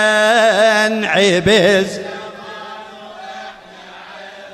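A man chanting a line of Arabic poetry into a microphone, his voice holding long, wavering, ornamented notes. It breaks off about two seconds in and leaves only a faint fading tail.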